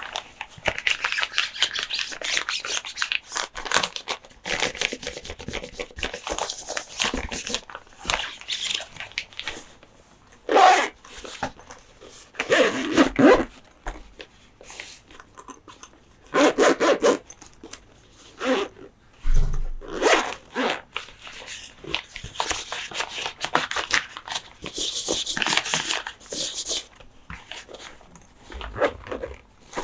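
Close-up handling of plastic and diecast toy monster trucks and their packaging: steady rubbing, scratching and light tapping, with several short, louder scraping strokes.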